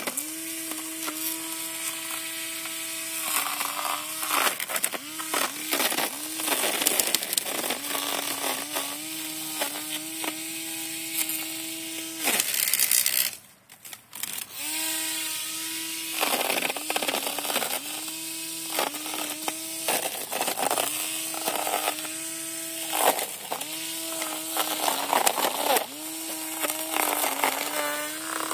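Flywake Bionic grass trimmer's motor whining steadily, its pitch dipping briefly again and again as the head cuts into the grass and weeds. About halfway through there is a short burst of hiss, then the motor stops for about a second and starts up again.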